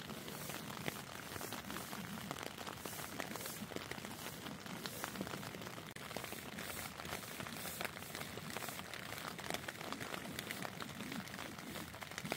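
Heavy rain hitting a tent, heard from inside: a steady hiss made of many small drop taps, with no let-up.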